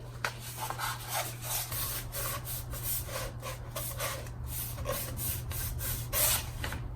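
Cardstock paper petals being pre-curled by hand: quick, repeated rubbing and scraping strokes of stiff paper, a few a second.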